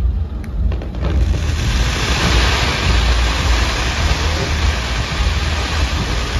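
Fireworks display: deep rumbling booms of launches and bursts under a dense crackling hiss of sparks. The hiss swells in about a second in and keeps on.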